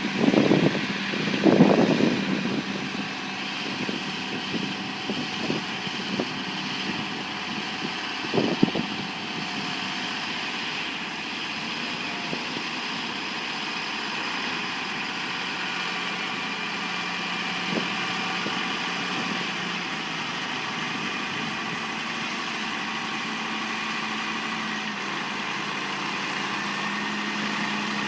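Heavy truck or heavy-equipment engine running steadily at idle, with a few loud clunks in the first two seconds and another about eight seconds in.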